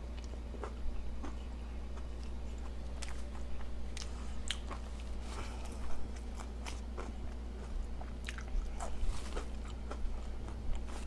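A person chewing a mouthful of bacon cheeseburger topped with French fried onions, close to the microphone: irregular wet smacks and small crunches over a steady low hum.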